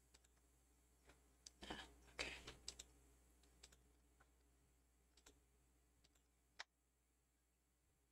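Faint computer mouse clicks over near silence: a short flurry about two seconds in, then a couple of single clicks later.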